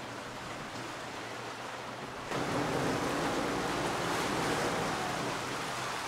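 Sea water rushing and splashing past a catamaran's hulls as it sails, a steady wash of noise that jumps louder about two seconds in.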